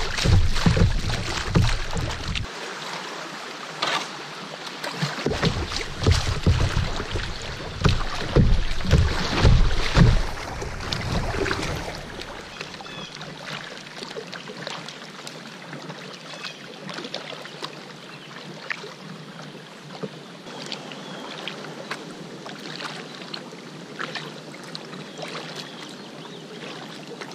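Rushing, splashing river water around a kayak's bow as it runs a shallow riffle, loud with low rumbles for about the first twelve seconds. Then the water goes calm and only a soft wash with faint splashes and ticks remains.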